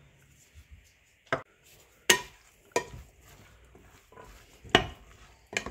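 A spoon stirring a thick yogurt chaat in a glass bowl, knocking against the glass about five times in sharp clinks at uneven intervals, with soft mixing between them.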